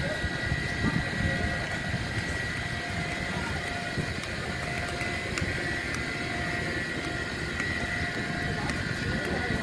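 Steady hum of a standing Amtrak passenger train, with a constant whine and a low rumble. Scattered small clicks of footsteps and rolling luggage on the concrete platform.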